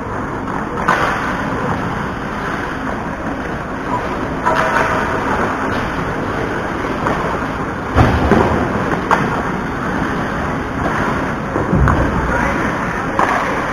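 Ice hockey play on an action camera's microphone: a steady rumbling noise with about six sharp knocks from sticks, puck or bodies, the loudest about eight seconds in.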